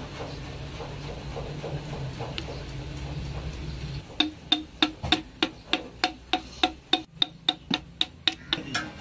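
A steady low hum, then from about four seconds in a run of sharp metallic taps, about three a second, each with a brief ring, like a tool tapping on a metal engine part.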